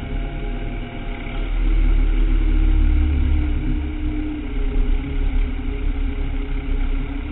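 Tractor engine running while driving a rough forest track, a deep rumble that grows louder about a second and a half in and eases slightly after about four seconds.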